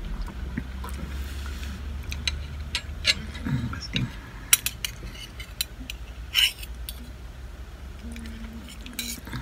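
Stainless fork and knife clinking and scraping on a ceramic plate while cutting meat, in scattered sharp clicks. One longer scrape comes about six and a half seconds in.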